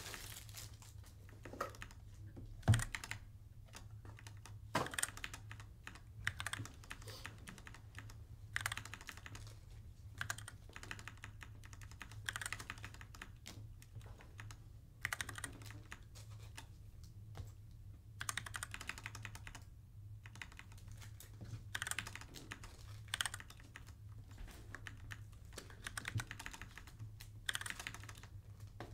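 Typing on a computer keyboard in short irregular spurts of clicks, over a low steady hum, with one louder knock about three seconds in.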